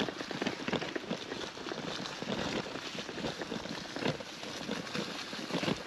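Bicycle tyres rolling over a rough, unpaved track, a steady noise full of irregular crunching and crackling ticks.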